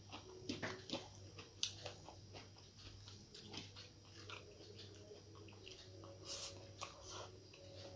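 Close-miked eating sounds: fingers mixing rice on a plate and a mouth chewing with small wet smacks and clicks, scattered irregularly, over a faint steady low hum.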